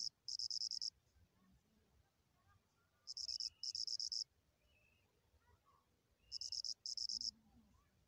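An insect chirping in pairs of short, high, rapidly pulsed trills, each about half a second long. A pair comes roughly every three seconds, three pairs in all.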